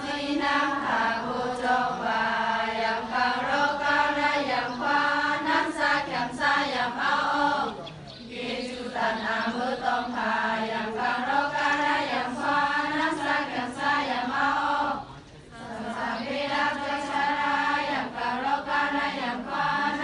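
A group of young women chanting a prayer together in unison, in long sung phrases. The voices break off twice for breath, about eight and fifteen seconds in.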